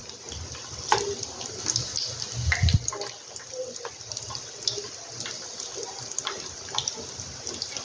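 Cheese-dough balls deep-frying in a pan of hot oil: steady sizzling and bubbling with many small crackles and pops, as more spoonfuls of dough go into the oil. There are a few louder bumps near the first and third seconds.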